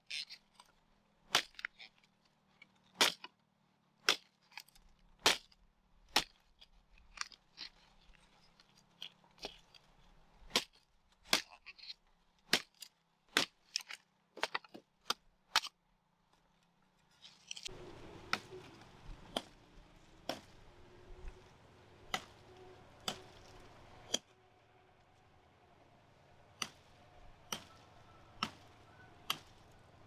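A knife chopping sugarcane stalks: a run of sharp, irregular whacks, about one or two a second and often in quick pairs, spreading out somewhat in the second half.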